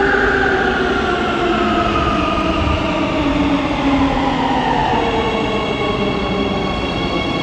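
Warsaw Metro train running with its traction motors whining in several falling tones as it slows down, over a steady rumble. About five seconds in, a set of steady high tones sets in.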